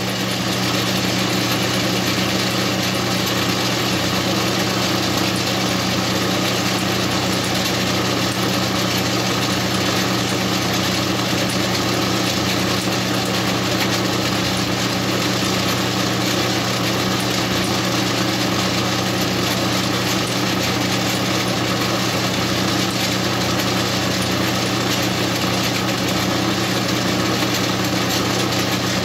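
Metal lathe running steadily at speed, its electric motor and headstock gearing giving an even hum as it spins a spark plug held in the chuck.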